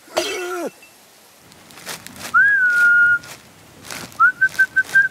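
A man whistling: one held note with a small upward scoop at its start, then after a pause a slightly higher note broken into quick pulses, with a few sharp clicks alongside it near the end. A brief voice-like cry, falling in pitch, opens the stretch.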